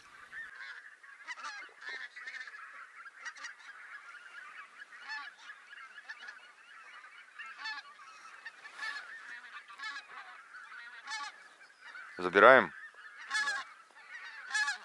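A flock of wild geese honking in flight, many overlapping calls at once, with a few louder, closer calls near the end.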